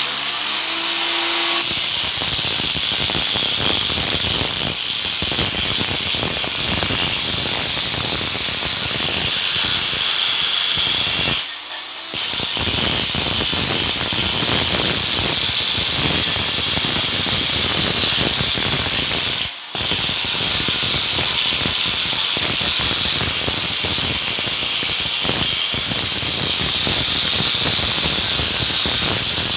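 Stick (shielded metal arc) welding arc crackling steadily, with two brief breaks in the sound partway through.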